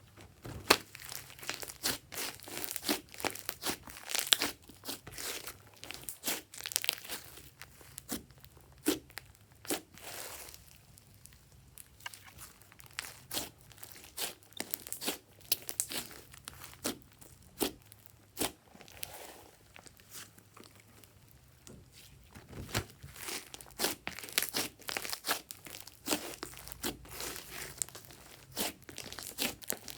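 Glossy slime being squished, stretched and folded by hand, giving dense, irregular sticky crackles and pops, with a couple of short lulls.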